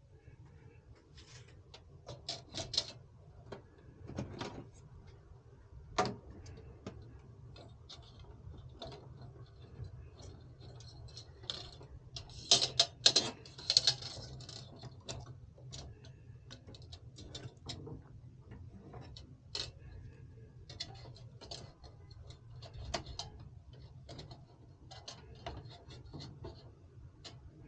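Scattered small clicks, taps and light knocks of hardware being handled, loudest in a quick run about halfway through, over a steady low hum.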